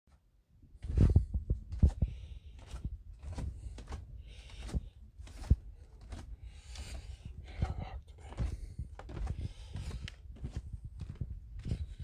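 Footsteps walking down wooden outdoor stairs and then crunching along a gravel driveway, at an even walking pace of about two steps a second.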